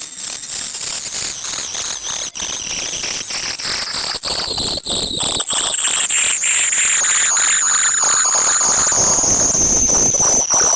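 Very loud, piercing high-pitched electronic tone meant to be played through lost AirPods or earbuds so they can be found by ear, layered with lower tones and hiss; one of the lower tones slowly falls in pitch.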